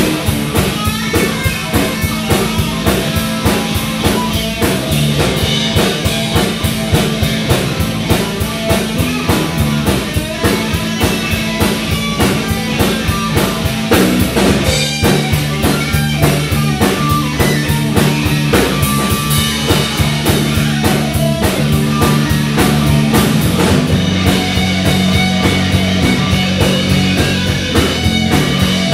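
Live rock band playing: electric guitar, electric bass and drum kit, loud, with a steady beat.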